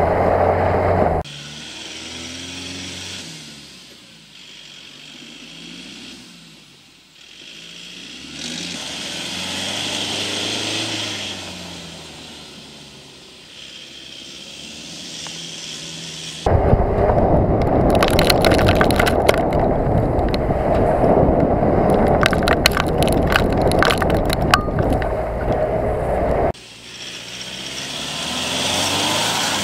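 Ford Ranger 2.2 TDCi four-cylinder turbodiesel revving up and down as the pickup slides around on grass. In two stretches, a short one at the start and a longer one of about ten seconds from the middle, the sound turns to loud wind and tyre noise close up, with many sharp clicks of grass and dirt striking.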